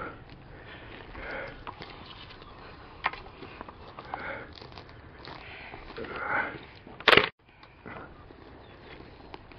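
A person breathing and sniffing close to the microphone, in soft puffs every second or two. A single sharp knock comes about seven seconds in.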